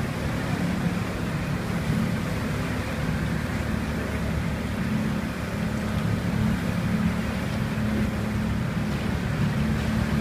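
Boat engine running steadily, a low drone, with wind and water noise over it.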